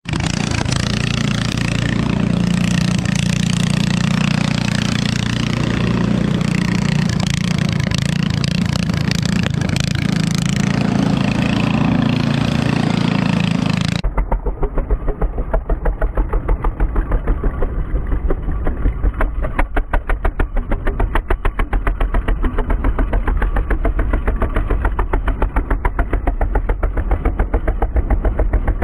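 Vintage snowmobile engine running hard as the sled drifts around on snow. About halfway through, the sound changes abruptly to a duller engine note with an even pulsing beat.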